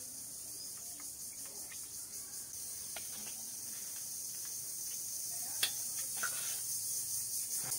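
Insects, likely crickets, trilling in a steady high-pitched pulsing chorus that grows louder toward the end. A couple of light clinks of a spoon against steel dishes.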